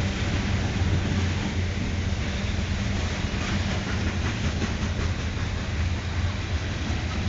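Loaded freight cars, centerbeam flatcars stacked with lumber, rolling past close by: a steady rumble of steel wheels on the rails, with faint clicks as the wheels cross rail joints around the middle.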